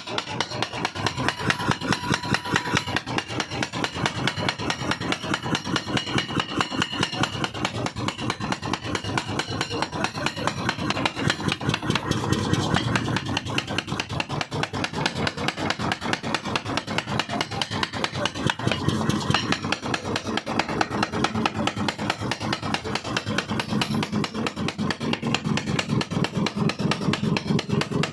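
Mechanical power forging hammer with a 5 kg ram running on trial, striking a 1½-inch rod in a fast, steady rhythm of several blows a second over the hum of its drive.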